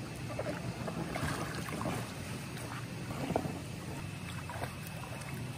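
Pool water splashing and lapping as a person swims, with scattered small splashes over a steady wash of noise.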